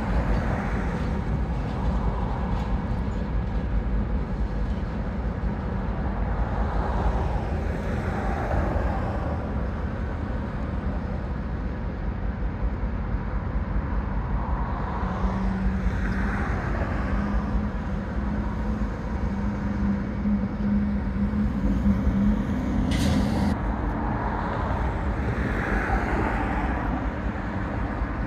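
Diesel switching locomotives running at low speed as they pull away, a steady low rumble, with road vehicles swelling and fading past several times. A short hiss about 23 seconds in.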